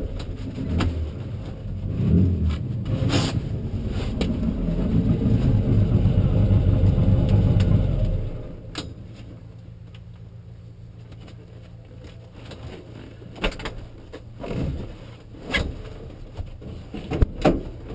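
Turbocharged VW Beetle drag car's engine running unevenly at low speed, heard inside the stripped, caged cabin, then shut off about eight seconds in. After that a faint steady hum remains, with scattered knocks and scrapes, and near the end the driver's helmet is pulled off.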